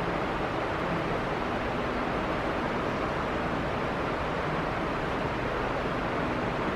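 Steady hiss and low rumble of background noise, with no distinct events.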